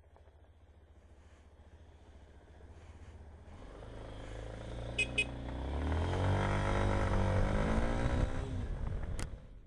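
Motorcycle engine idling low, then pulling away. Its note grows louder and rises in pitch from about four seconds in, is loudest around seven seconds, and drops away near the end. Two short high chirps sound about five seconds in.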